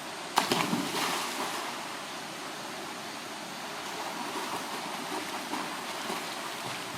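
Mountain stream rushing steadily over rocks, with one sudden loud hit about half a second in.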